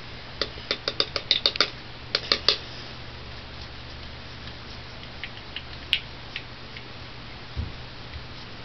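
A quick run of about a dozen light clicks and taps from handling a small makeup container, then a few faint taps as foundation is dabbed on with the fingers, over a low steady hum.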